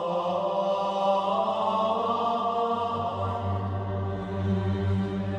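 Background music of steady, held tones, with a deeper low note swelling in about three seconds in.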